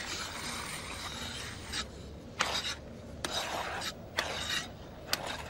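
Ice-skate blades scraping and gliding over ice in a rasping hiss. A few short, sharp scrapes come in the second half.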